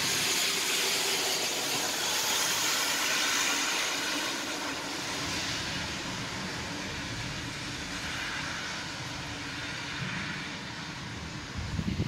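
Thunderstorm: a rushing hiss of heavy rain, strongest at first and easing after a few seconds, with a low rolling rumble of distant thunder rising under it through the middle.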